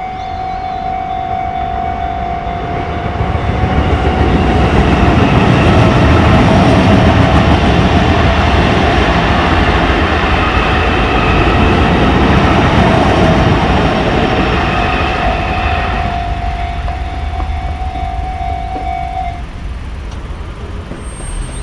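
Sotetsu Main Line train passing over a level crossing while the crossing's warning bell rings. The train's rumble swells over a few seconds, stays loud for about ten seconds, then fades. The bell stops near the end.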